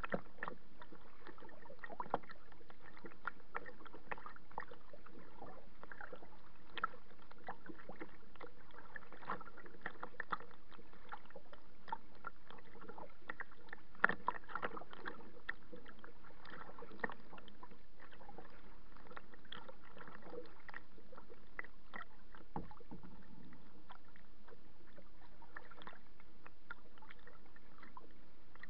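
Small choppy waves slapping and splashing against a kayak's hull, in irregular small splashes over a steady wash of water, with the loudest splash about halfway through.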